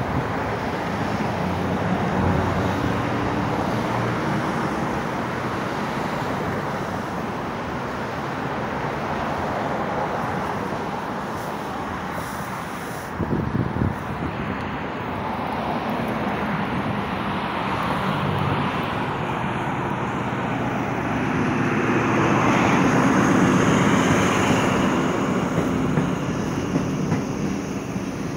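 Diesel passenger train approaching along the line and passing below, its engines running with a steady hum that grows louder. It is loudest, with a high whine, about twenty-odd seconds in as the power car and carriages pass beneath.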